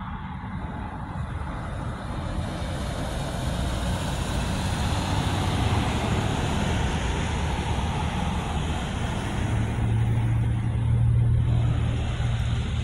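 Road traffic: cars driving through an intersection, the sound swelling as one passes close around the middle. A deeper steady engine hum comes in over the last few seconds.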